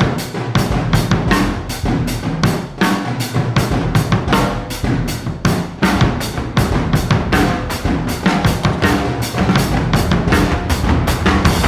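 Background music with a driving drum-kit beat, bass drum and snare hitting several times a second.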